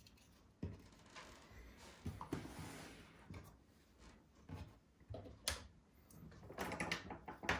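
Faint handling sounds of soldering gear on a desk: a few small knocks and clicks with soft rustling between, the sharpest about five and a half seconds in and a short cluster near the end.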